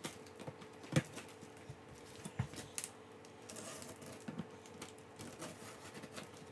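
Scattered light knocks, taps and scrapes of a box cutter and hands working on a cardboard box, with one louder knock about a second in and a short scraping hiss a little past the middle.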